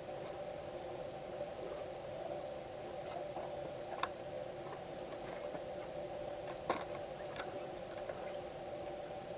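Soft, small wet squelches and clicks of hands working inside a hollowed cantaloupe and raw chicken, foley for an open wound being handled, over a steady faint hum. Two sharper clicks stand out, about four and about six and a half seconds in.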